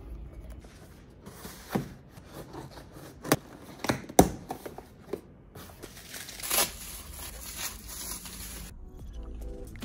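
Cardboard shipping box being opened by hand: flaps pulled open with tearing and scraping and several sharp snaps, the loudest about four seconds in. Then plastic bubble wrap crinkles as a book is pulled out of it.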